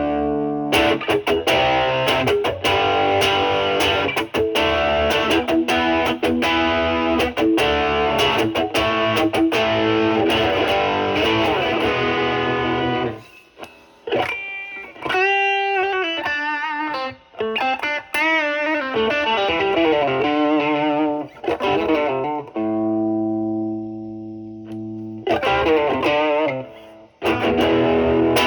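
Electric guitar (a Stratocaster with three single-coil pickups) played through an MXR Duke of Tone overdrive pedal in OD mode and a Marshall Valvestate's drive channel. The guitar's volume is rolled back so the overdrive cleans up. Strummed chords give way about thirteen seconds in to a single-note lick with bends and vibrato, then a held chord and chords again near the end.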